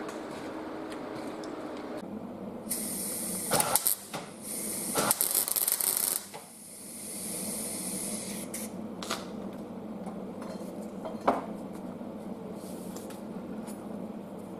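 Electric arc welding on steel: the crackling hiss of the arc comes in several short bursts, the loudest two in the first half, with weaker ones after. A steady low hum runs underneath.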